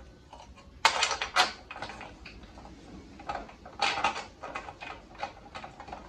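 A series of sharp metal clinks and knocks from steel brake parts being handled: bolts and the steering arm knocking against the disc brake caliper bracket and dust shield as they are fitted to the spindle.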